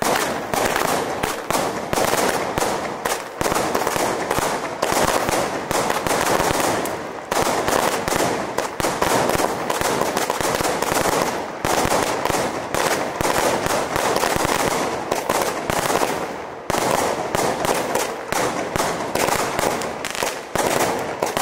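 Consumer firework cake (multi-shot box) firing shot after shot from the ground, its aerial bursts popping and crackling in a dense, near-continuous string, with short lulls every few seconds.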